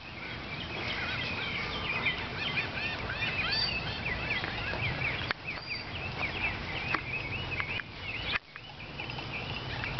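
A flock of birds chirping and chattering, many short calls at different pitches overlapping, densest in the first half and thinning out later, over a low rumble of wind or handling on the microphone.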